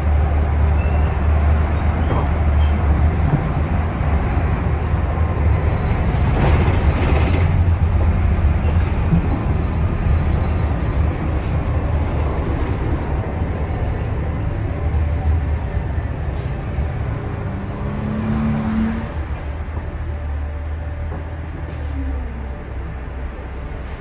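Interior noise of a 2006 NABI 40-LFW transit bus underway: its Cummins Westport C Gas Plus natural-gas engine and Allison B400R automatic transmission give a steady low rumble under road noise. A short rising whine comes about three-quarters of the way through, and after it the cabin is somewhat quieter.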